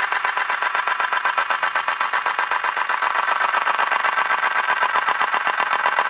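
Whirring rotation sound effect: a steady stream of rapid, even pulses, about eight a second, like a spinning mechanism turning over and over.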